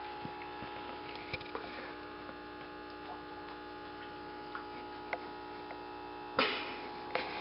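Steady electrical hum, with faint scattered ticks of a rat terrier chewing and tugging at a stuffed toy, and a short louder rustle about six seconds in.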